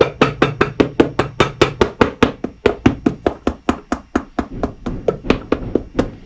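Cobbler's hammer striking a leather work boot held on a metal last stand in a fast, even run of blows, about five or six a second, stopping near the end. The hammering sets a freshly glued leather reinforcement piece down around the welt area.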